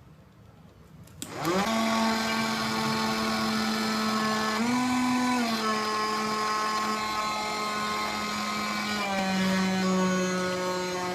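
Small DC motor spinning a propeller in a homemade plastic-bottle vacuum cleaner: switched on with a click about a second in, it spins up to a steady high whine. The pitch rises briefly around the middle and drops slightly near the end.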